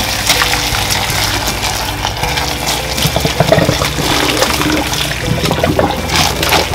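Hot water poured in a steady stream from a pot onto raw pork pieces in a plastic bowl, splashing and gushing: the pork is being scalded.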